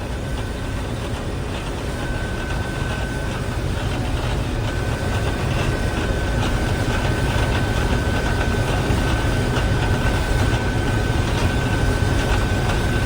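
Combine harvester running steadily while harvesting wheat, a dense low engine and machinery drone. A thin steady high tone joins about two seconds in and holds.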